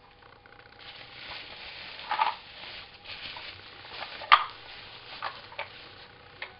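Plastic bubble wrap rustling and crinkling as it is handled and unwrapped, with a few sharper crackles, the loudest about four seconds in.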